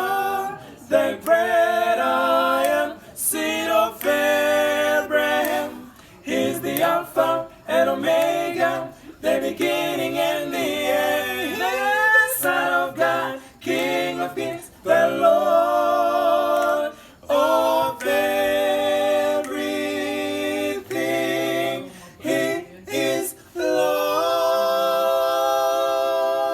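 Unaccompanied a cappella gospel singing: voices moving through sung phrases with short breaths between them, then settling onto one long held note near the end.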